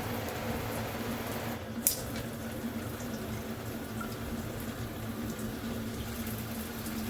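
Water spraying steadily from a Delta 2-in-1 shower head during a test of its spray settings, with one sharp click about two seconds in.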